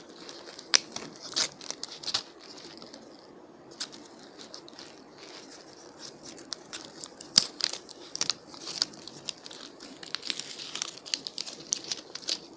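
Plastic wrapping crinkling and rustling as it is handled and pulled out of a boot, with irregular sharp crackles, the loudest about seven seconds in.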